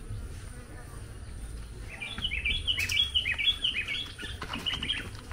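A small bird chirping in a quick run of short high notes, starting about two seconds in and lasting about three seconds. A few light knocks of a plastic ladle against a clay pot come in among the notes.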